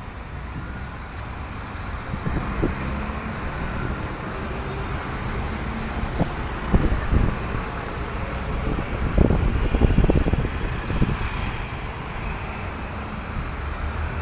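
Intercity bus engine running as the bus pulls slowly into a terminal garage, over steady street traffic noise. A few short, louder low thumps come about halfway through.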